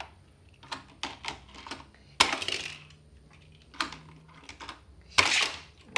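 Small clicks and taps of die-cast toy cars and a plastic Hot Wheels track set being handled, with two louder, brief clattering sounds, one about two seconds in and one near the end.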